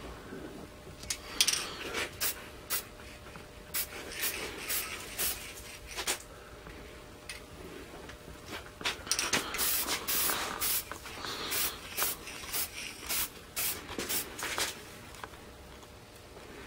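Aerosol can of metallic green spray paint hissing in many short bursts, scattered at first and coming thick and fast over the second half. The can sprays in a stream rather than a fan, like carburetor cleaner, which the painter blames on its hard trigger.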